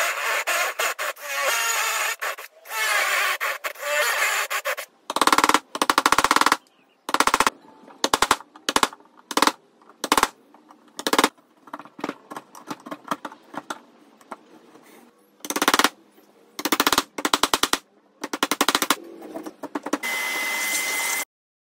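A power drill boring into pine with a spade bit, then bursts of very rapid sharp taps as a steel chisel chops out a mortise in the wood. The taps come in short clusters with gaps between and end abruptly.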